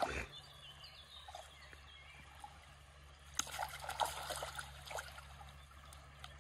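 Water splashing and sloshing as a keepnet full of barbel is worked by hand in shallow river water, with a cluster of sharp splashes about three and a half seconds in and a smaller one a second later.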